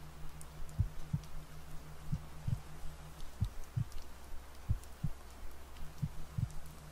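Slow recorded heartbeat, a double lub-dub thump repeating evenly at roughly 45 beats a minute, over a steady low hum. The higher part of the hum drops out about halfway through and comes back near the end.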